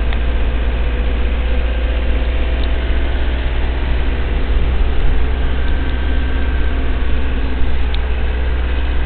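Car driving at a steady pace, heard from inside the cabin: a steady low engine rumble with road noise over it.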